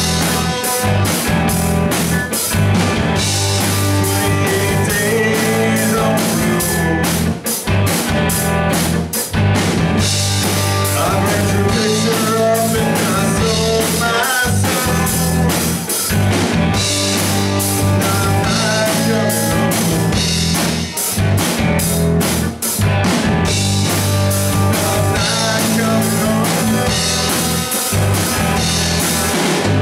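A live rock band playing: electric guitars over a drum kit keeping a steady beat.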